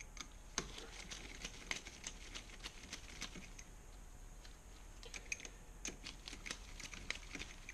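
Socket wrench on an extension undoing an M8 bolt on a motorcycle engine's inner alternator casing: light, irregular metallic clicks and ticks, a little denser in the second half.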